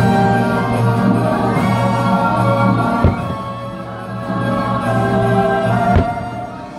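The fireworks show's holiday soundtrack, a choir singing over orchestral music, with two firework shells bursting about three seconds apart, the second a little before the end.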